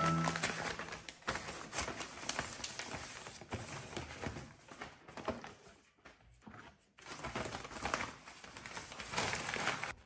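Paper wrapping rustling and crinkling as hands tear it and pull it off a cardboard box, with a brief lull about six seconds in.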